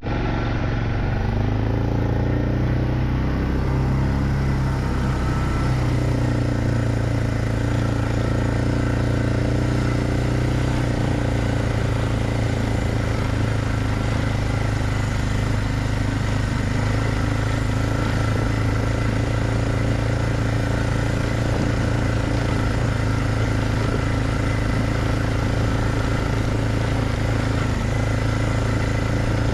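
Diesel tractor engine running steadily at working speed, pulling a box blade back and forth to grade a gravel road.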